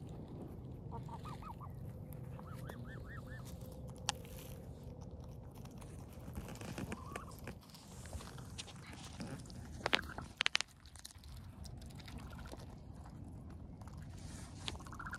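Young waterfowl giving two quick runs of short rising-and-falling calls in the first few seconds, over steady low background noise. A few loud, sharp clicks come about ten seconds in.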